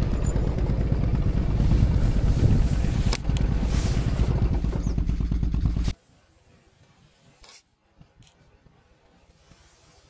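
Wind buffeting the microphone as a loud, uneven low rumble. It cuts off abruptly about six seconds in, leaving near silence with a couple of faint clicks.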